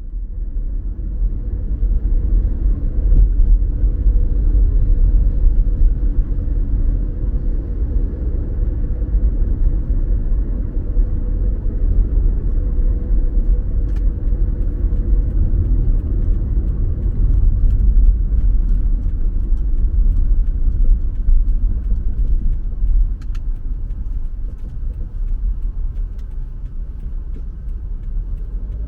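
Steady low road rumble of a car driving at cruising speed, heard from inside the cabin: tyre and engine drone with a faint steady hum and a few light ticks.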